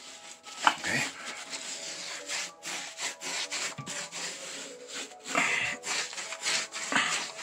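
Paint roller worked back and forth over a closet wall, in repeated strokes with a rough rubbing sound.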